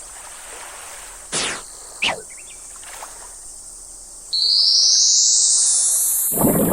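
Cartoon sound effects: two quick falling whistles, then a loud, long rising whistle, over a steady high-pitched drone. A noisy rattling burst starts just before the end.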